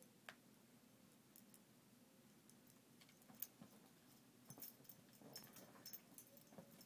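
Faint sounds of a small dog biting, shaking and tossing a plush frog slipper on a couch cushion: scattered soft clicks and rustles, busier in the second half.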